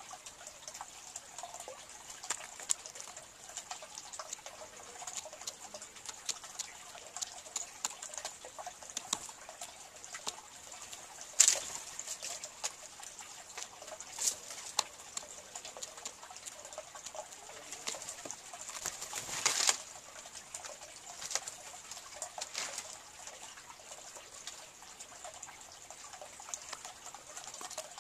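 Green jay foraging on a seed-covered log: scattered sharp pecking taps, with two louder bursts about eleven and nineteen seconds in, over a steady high hiss.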